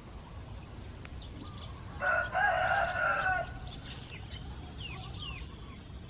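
A rooster crows once, about two seconds in, lasting about a second and a half. A few short falling chirps from small birds follow.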